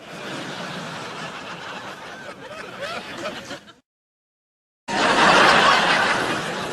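Sitcom laugh-track crowd laughter: an audience laughs for about three and a half seconds, cuts off to a second of silence, then a second, louder audience laugh starts.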